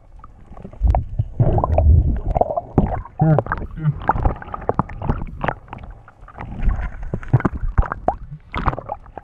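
Water heard from an underwater action camera: muffled gurgling, bubbling and sloshing against the housing, with many small ticks and knocks, as the camera moves underwater and dips through the surface.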